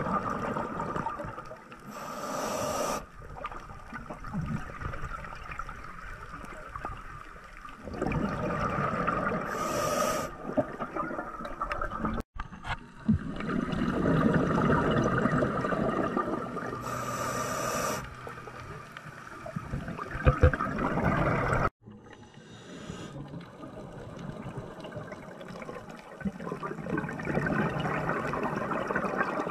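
Scuba diver breathing through a regulator, heard underwater: a short hissing inhale every several seconds, each followed by a longer spell of bubbling exhaust. The sound breaks off abruptly twice.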